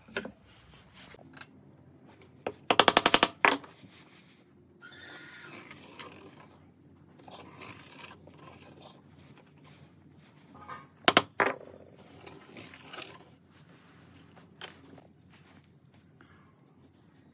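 Work on a wooden board at a bench: a rapid rattling run of knocks about three seconds in and a sharp double knock about eleven seconds in, with faint scraping between.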